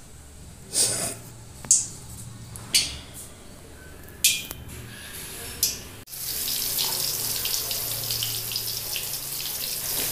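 Spice-marinated chicken squelched by hand in an aluminium pot: five or six short, wet squishes. About six seconds in, chicken frying in hot oil in a kadai takes over with a steady sizzle and fine crackling.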